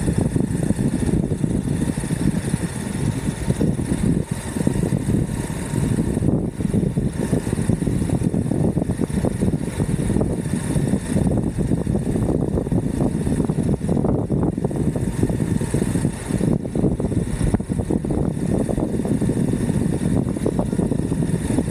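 Continuous wind buffeting on the microphone and a steady low rumble of wheels on the road while riding an Exway Atlas Pro 4WD electric skateboard.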